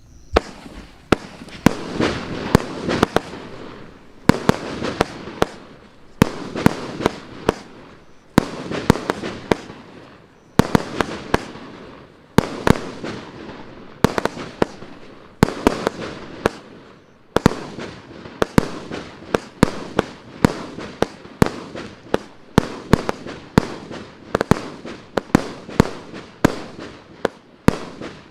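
A 60-shot firework cake of 1-inch (25 mm) calibre firing in quick succession: sharp shots about two a second, with the noise of bursting shells filling the gaps between them.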